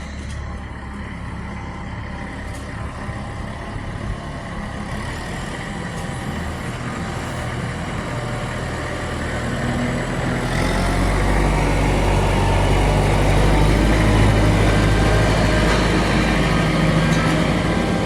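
Engine of farm machinery running steadily, growing louder and deeper about ten seconds in.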